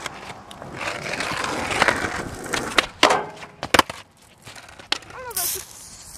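Skateboard wheels rolling on rough pavement, broken by several sharp clacks of the board popping and landing, the loudest a little before four seconds in. Near the end comes a short hiss from an aerosol can of silly string.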